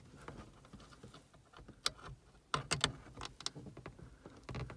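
Scattered small plastic clicks and taps as fingers press an LED bulb into its contacts and handle the plastic housing of a car's front dome light, with a cluster of clicks about halfway through.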